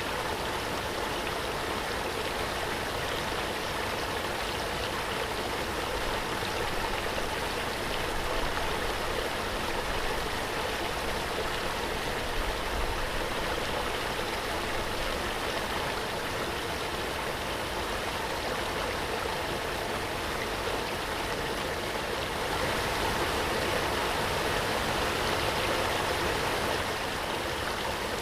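Waterfall: a steady rush of falling water with no breaks, swelling slightly about three-quarters of the way through.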